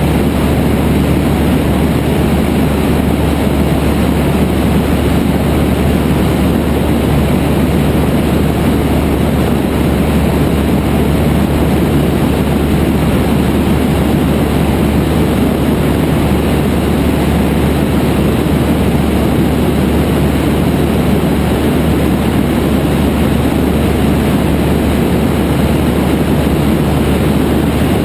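Cessna 172's piston engine and propeller running steadily in flight, a loud unbroken drone.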